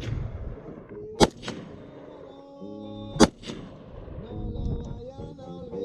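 Two rifle shots about two seconds apart from an AR-47, an AR-style rifle chambered in 7.62×39, over background music. The rifle is cycling without jams, running flawless.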